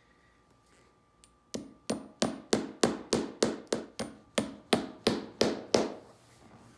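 A hammer striking in a quick, even series of about fourteen blows, roughly three a second. The blows start about a second and a half in and stop near the end.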